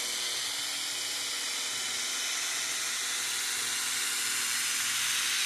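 Braun Silk-épil 9 Flex epilator running on its slower speed, a steady high whirring buzz as its head is worked over the skin of a leg, pulling out hairs. It grows gradually a little louder.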